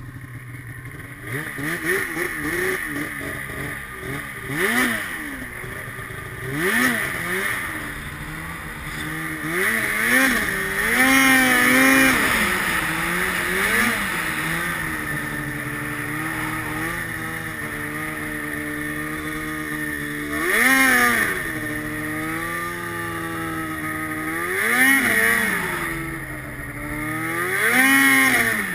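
Snowmobile engine running under way, its pitch rising and falling as the throttle is opened and eased off again in several surges.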